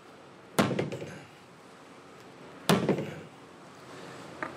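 Sledgehammer striking a 12-gallon cross-linked polyethylene hydraulic tank twice, about two seconds apart. Each blow is a sharp hit followed by a short echo.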